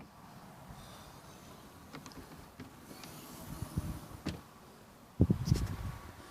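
Jeep Cherokee XJ moving off road: a low steady rumble broken by scattered knocks, then a cluster of heavy thumps about five seconds in.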